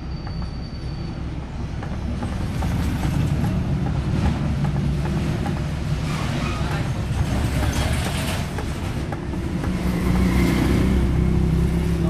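Washing machine's wash motor driving its gearbox, a steady low hum with rough scraping noise over it that swells a few seconds in and again near the end. The gearbox's gears are worn out, so it does not run as it should.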